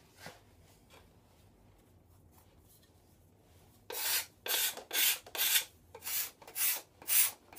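Hand sanding the bare maple frame of a rocking chair, an abrasive sheet rubbed back and forth over the wood. After a faint start, the strokes come in a steady rhythm of about two a second, starting about four seconds in.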